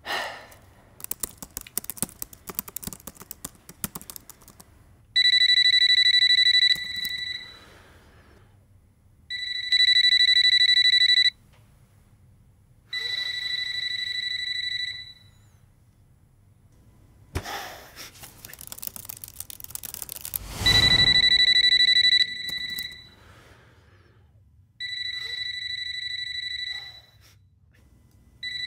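A telephone ringing with a warbling electronic ring, five rings of about one and a half to two seconds each, a few seconds apart, some louder than others. A patter of laptop key clicks comes in the first few seconds.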